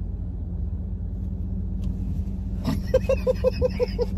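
Steady low rumble of a car moving, heard inside the cabin. About two and a half seconds in, a woman starts laughing in a quick run of 'ha-ha' pulses, the loudest sound here.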